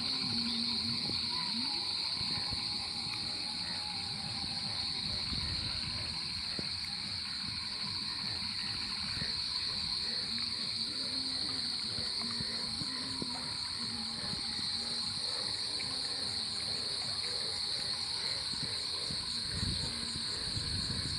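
Steady night chorus of crickets and other insects, a continuous high-pitched trilling, with rustling and footsteps through vegetation close by.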